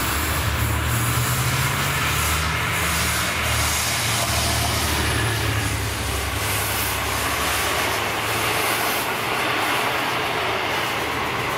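V/Line N Class diesel locomotive passing close by with a low engine drone that fades about halfway through, then its carriages rolling past with steady wheel and rail noise.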